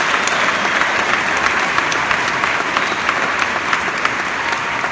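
Audience applauding steadily after an applause line in a speech, a dense patter of many hands clapping.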